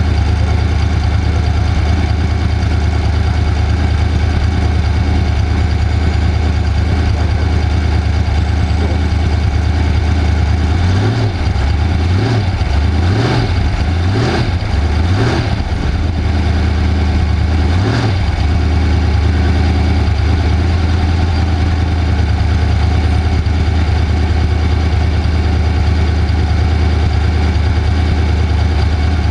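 Off-road race vehicle's engine running steadily, its pitch dipping and rising again about half a dozen times in quick succession around the middle.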